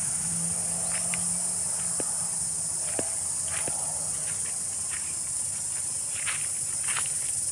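Cicadas singing in a steady, high-pitched drone, with scattered short ticks over it.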